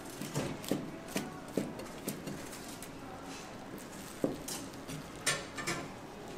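Kitchen utensils and dishes clattering: irregular light knocks and clinks, about eight in a few seconds, over steady background noise.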